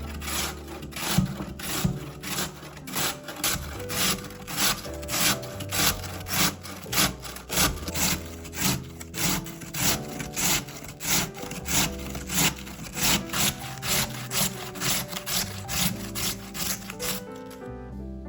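Food being grated by hand on a metal grater: steady rasping strokes, about two a second, that stop near the end.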